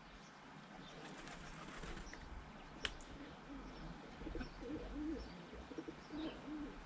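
Pigeon cooing in short low phrases from about halfway through, over faint chirps of small birds, with a single sharp click just before the cooing starts.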